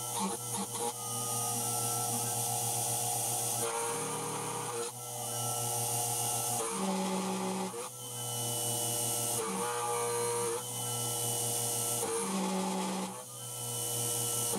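CNC mill cutting steel plate with a quarter-inch four-flute carbide end mill at about 8,000 rpm, its spindle driven by a treadmill motor through 3D-printed pulleys. The cut makes a steady hissing grind over a whine whose pitch and level change every one to three seconds as the cutter moves along its path.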